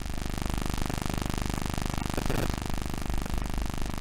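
Background workout music with a fast, steady beat.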